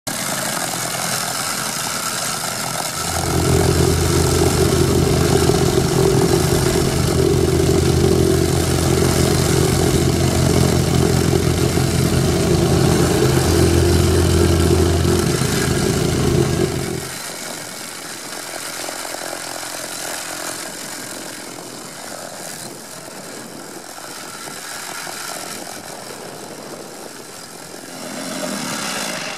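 Weber MT CFR 90 vibratory plate compactor running over gravel: its small engine and vibrating base plate give a steady mechanical drone. It grows much louder, with a strong low hum, about three seconds in, then drops to a quieter, steadier running about halfway through.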